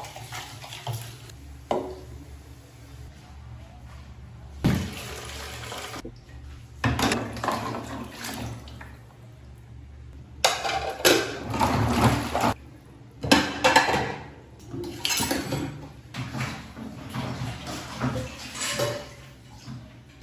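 Household water running in several short stretches, with dishes and pots clattering.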